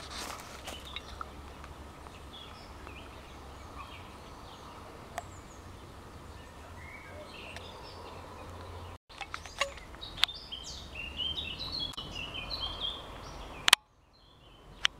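Small birds chirping and warbling over a steady low rumble, busiest in the second half. A few sharp clicks cut through, the loudest near the end.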